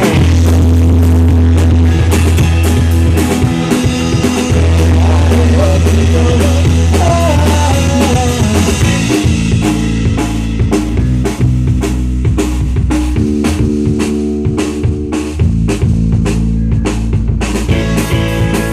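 Rock band jamming an instrumental passage: a drum kit keeps a steady beat under bass and guitar.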